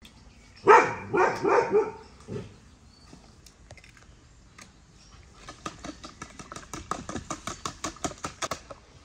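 A dog barks about five times in quick succession about a second in. Later a hand whisk beating in a plastic bowl makes a fast, even clicking that lasts almost to the end.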